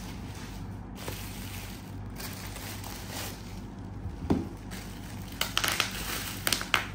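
Plastic bubble wrap rustling as it is pulled off a box, with a short low knock about four seconds in. Then the wrap is squeezed in the hands and its bubbles pop in a quick run of sharp snaps.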